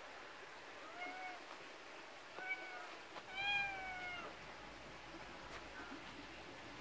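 Domestic tabby-and-white cat meowing three times about a second apart, the third meow the longest and dropping in pitch at its end.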